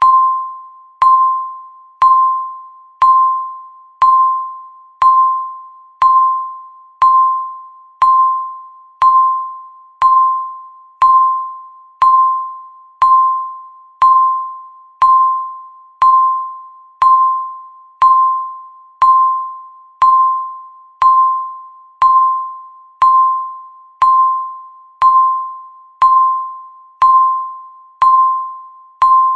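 Countdown timer beep: a short electronic beep at one steady pitch sounding exactly once a second, each one starting sharply and fading quickly, marking each second ticked off the countdown.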